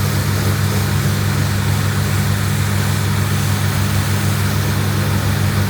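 Car engine running at steady revs: a loud, low, even drone that holds the same pitch throughout.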